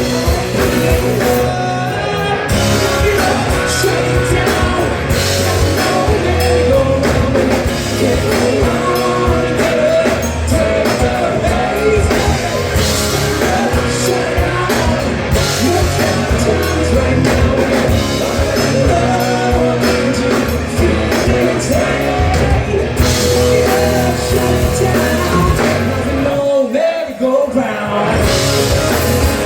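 Live rock band playing a song with a singer, loud throughout; the low end briefly drops out for about a second near the end.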